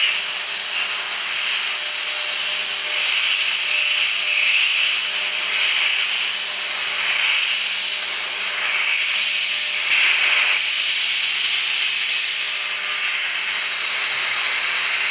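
CNC milling machine cutting aluminium with a solid-carbide end mill: a steady, loud hissing cut with a faint steady hum underneath, growing briefly louder about ten seconds in.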